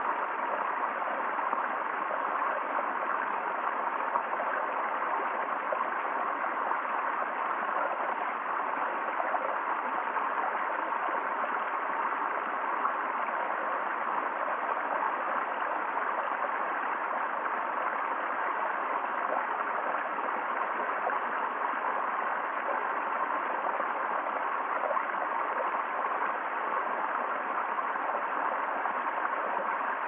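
Small woodland cascade of water tumbling over rocks into a shallow pool: a steady, unchanging splashing.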